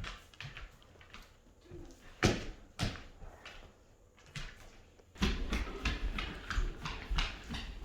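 A dog moving about and playing with a giant stuffed toy: scattered knocks and thumps, then a busier stretch of rustling and shuffling from about five seconds in.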